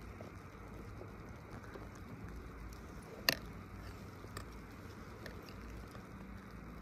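Riding a CTEC fixed-grip chairlift: a steady low rumble with one sharp click about three seconds in and two fainter ticks after it.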